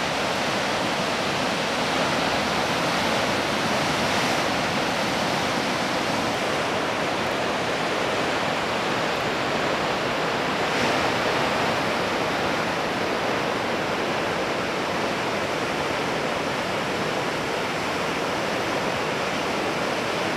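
Ocean surf breaking, a steady, even wash of noise.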